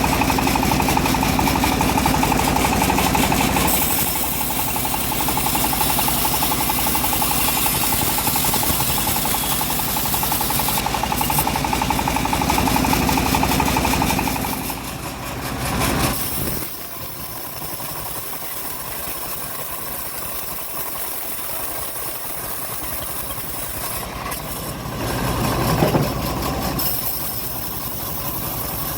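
Homemade bandsaw sawmill running as it rips a teak log, loud and dense for about the first half, then dropping to a quieter, steadier running, with a brief rise near the end.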